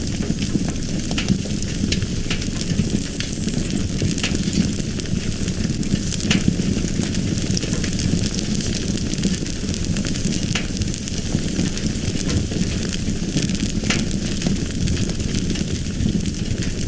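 Fire burning, with a steady low rush and scattered, irregular sharp crackles and pops.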